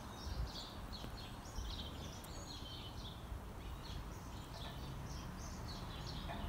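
Small birds chirping and singing, many short repeated calls throughout, over a low steady rumble.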